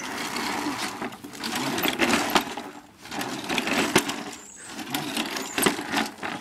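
Lawn mower engine being cranked over without catching: a rattling, chugging turnover in three bursts separated by short pauses, with a few sharp clicks.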